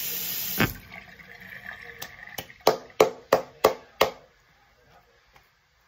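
Bathroom sink tap running, then shut off with a knock less than a second in. About two seconds in comes a quick run of about seven sharp taps over two seconds.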